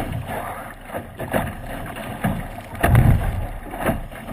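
Small sailing dinghy beating upwind through chop: water rushing along the hull, with the bow slapping into waves several times, the heaviest hit about three seconds in, and wind on the microphone.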